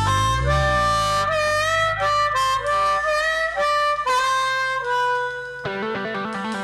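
Blues harmonica playing long held notes with bends up and down between them. About five and a half seconds in, an electric guitar takes over with a fast repeating riff.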